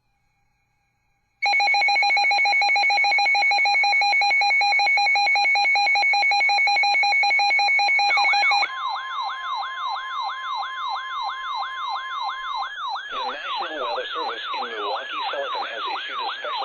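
Emergency alert attention tone: a loud steady alarm tone comes in about a second and a half in and holds for about seven seconds. It then gives way to a rapidly wailing siren sound, two to three sweeps a second, with a steady tone beneath it for a few seconds and several wails overlapping near the end.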